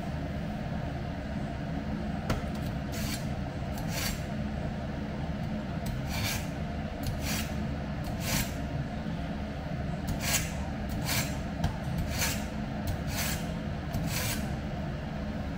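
A steel kitchen knife blade drawn through a handheld knife sharpener to sharpen a dull edge: about a dozen short, high scraping strokes at irregular intervals, over a steady low hum.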